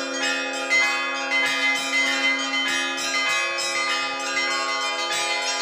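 Russian Orthodox church bells being rung in a festive Easter peal. Several bells are struck by their clappers in a quick, steady stream of about four strikes a second, and the strikes ring on over one another into a continuous sustained chord.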